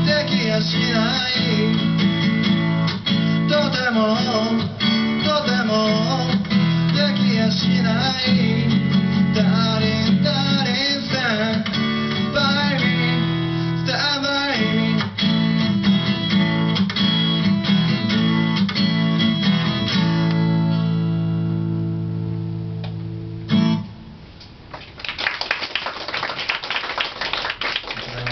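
Acoustic guitar strummed with a man singing. The song closes on a held chord that fades, then one last strum about 24 seconds in, followed by audience clapping.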